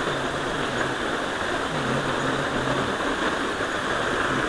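Steady rushing of flowing water, an even wash of noise with no breaks.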